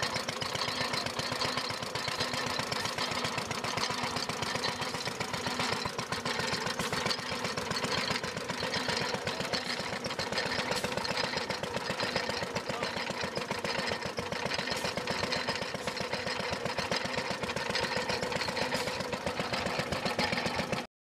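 Vintage Briggs & Stratton single-cylinder engine running steadily, belt-driving an antique multi-cylinder water pump, with a fast, even knocking rhythm.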